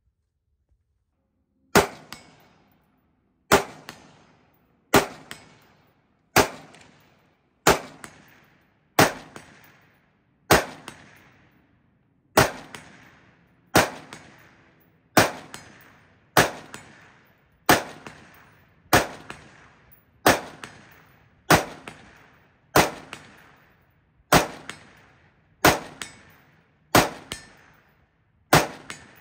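Sons of Liberty Gun Works M4-76 5.56 mm semi-automatic rifle with a muzzle brake being fired in a steady string, about twenty shots roughly one every second and a half, starting about two seconds in. Each shot is a sharp crack followed by a short ringing echo.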